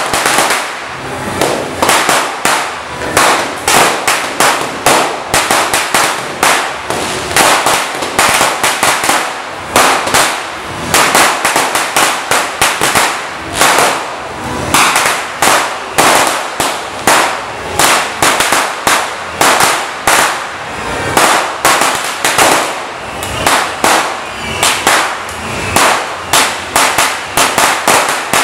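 A Judas's belt, a long string of small firecrackers, going off in rapid, unbroken succession: a dense, loud crackle of bangs.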